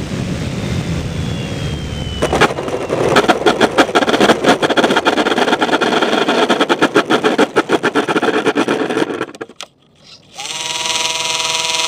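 Air rushing past a small electric RC plane on approach, then a hard knock as it touches down about two seconds in, followed by several seconds of rapid, loud clattering and scraping as the airframe skids along the ground without its nose wheel. The noise stops near the ninth second. About a second later a steady electronic buzz begins.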